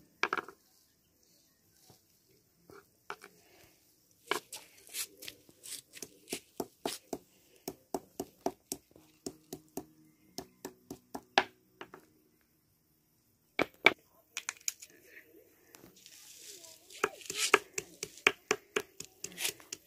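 Fresh herb roots and leaves being pounded with a hand-held stone on a flat rock: a run of sharp knocks, about three a second, broken by a short pause near the middle. The pounding crushes the roots fine for a medicinal paste.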